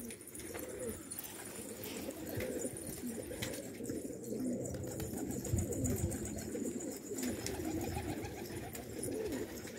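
Domestic pigeons cooing, several birds at once in a continuous low wavering burble.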